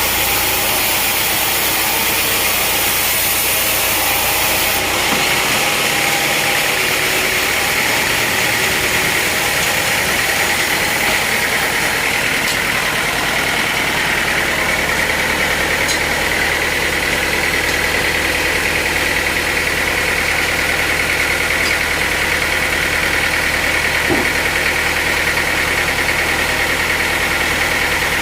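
Sawmill machinery running steadily, with an engine's drone under it. The sound shifts about five seconds in, and after that a steady high whine holds.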